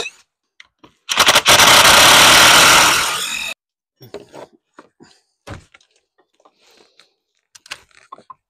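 A power tool runs loudly in a burst of about two and a half seconds as it cuts into the old wooden porch steps. After it comes a string of scattered knocks and scrapes of wood and tools.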